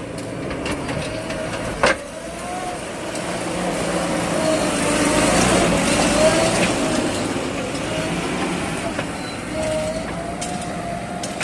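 JCB 3DX backhoe loader's diesel engine running under load, with a whine that wavers up and down in pitch and swells in the middle, and a single sharp knock about two seconds in.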